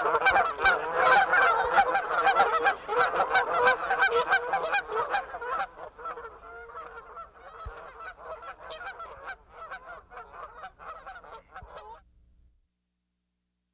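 A flock of Canada geese honking, many calls overlapping. The honking is dense and loud at first, thins out and grows quieter after about five seconds, and stops near the end.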